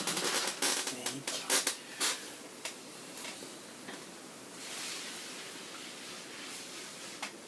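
Crackling scraping and sharp clicks of a prying tool working on a cracked iPad screen to separate the display, dense for the first couple of seconds, then a softer scrape and one click near the end.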